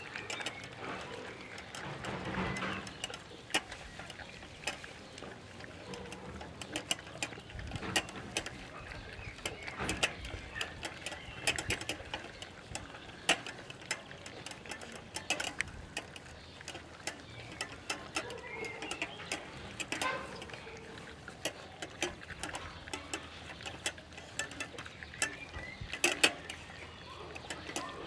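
A litter of Dobermann puppies eating from stainless-steel bowls in a metal feeding rack: a steady patter of irregular sharp clicks and clinks as teeth and food knock against the metal, with chewing.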